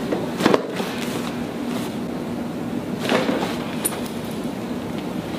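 Joint pops during chiropractic leg traction as the legs are pulled at the ankles: a sharp crack about half a second in and a second, softer pop about three seconds in.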